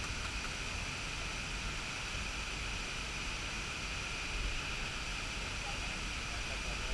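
Waterfall and river water rushing as a steady, even noise.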